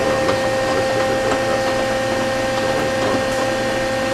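Steady hum of a running Okuma & Howa Millac 630H CNC horizontal machining center, with several steady tones over a mechanical noise and a few faint light clicks.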